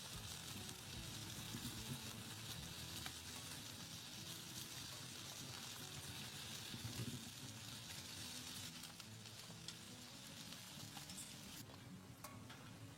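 A steady, faint sizzling hiss that cuts off suddenly near the end.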